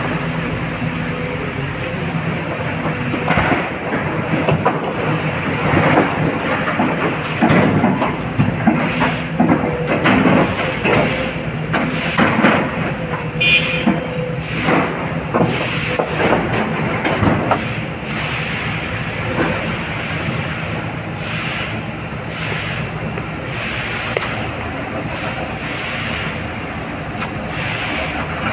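Heavy diesel excavator at work: the engine runs steadily, with repeated knocks and clatter from about three to eighteen seconds in, then only the engine. There is a brief high beep near the middle.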